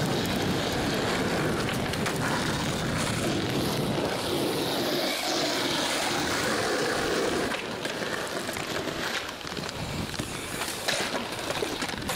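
Skateboard wheels rolling over rough asphalt, a steady gritty rumble, with a few sharp clacks of the board. The rolling noise eases off in the last few seconds.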